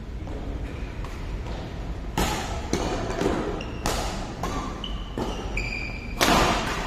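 Badminton rally: rackets hitting the shuttlecock several times, roughly a second apart, with short squeaks from shoes on the court floor between the hits. The loudest hit, near the end, is a jumping overhead smash. The hits ring on briefly in the large hall.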